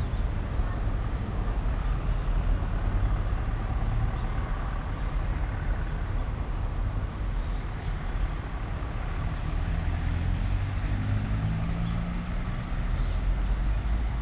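A motor vehicle engine running and driving past on a nearby road, its pitch rising near the end, over the steady rush of a flowing river.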